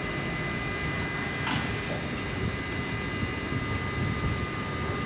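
Steady machine noise: a low rumble with a constant high whine over it.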